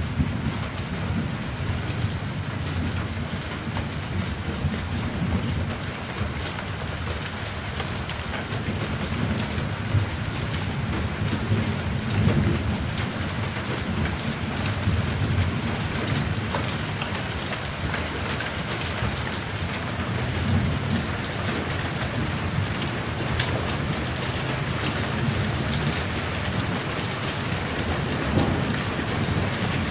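Steady rain falling straight down, with many fine drop ticks over a low, ongoing rumble of thunder that swells slightly about twelve seconds in.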